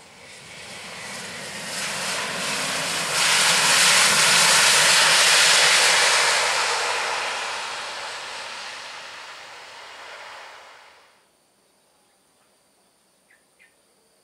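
Jet engines of a Citilink Airbus A320 rolling on a wet runway after landing. The roar swells sharply about three seconds in, stays loud for a few seconds, then fades and cuts off suddenly about eleven seconds in.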